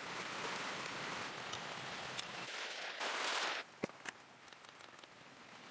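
Steady hiss of heavy rain that cuts off abruptly about three and a half seconds in, leaving a few faint clicks.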